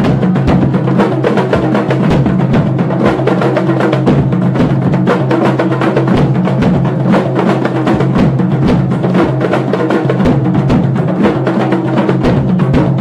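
A kompang ensemble, a group of hand-struck Malay frame drums, playing a fast, dense interlocking rhythm.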